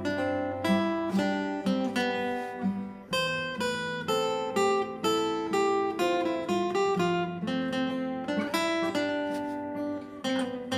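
Acoustic guitar playing a song's instrumental intro: picked notes and chords ringing out, with some strums.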